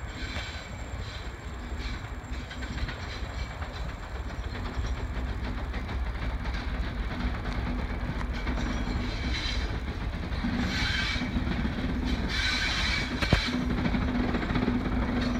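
Class 73 electro-diesel 73107 and class 66 66714 running coupled as light engines at low speed. Their diesel engines give a steady drone that grows gradually louder as they approach.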